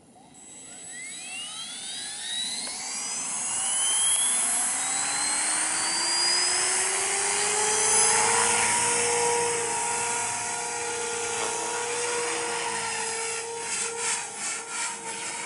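Radio-controlled model helicopter spooling up: the motor and rotor whine rises in pitch over several seconds and grows louder, then holds steady at flight speed. Near the end, as it lifts off and flies, the sound pulses quickly.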